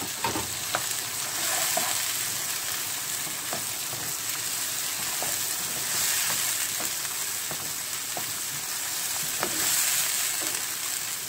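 Chopped onions and ginger-garlic paste sizzling in hot oil in a non-stick wok while a wooden spoon stirs them. Scattered light taps and scrapes of the spoon against the pan sound over a steady frying hiss.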